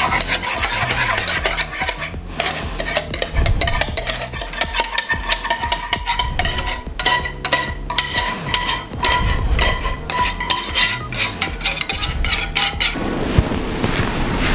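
Wire whisk stirring and scraping thick cornstarch-thickened lemon custard in a metal saucepan: a busy run of quick metal-on-metal clicks and scrapes while the filling is worked and scraped out into a pie dish.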